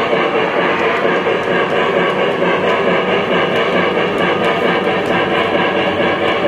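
O scale model of the Santa Fe 3751 4-8-4 Northern steam locomotive running along three-rail track: a steady, continuous rolling rumble of the model's wheels and running gear.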